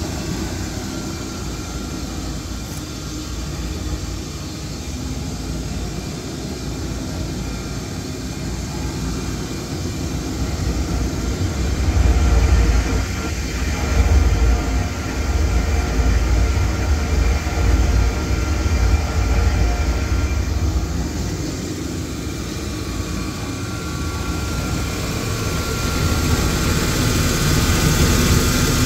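Hollymatic 180-A mixer grinder running in mix-only mode, its 10 hp motor turning the mixing paddles in the empty stainless hopper: a steady mechanical hum and rumble. The low rumble grows heavier through the middle stretch, then eases.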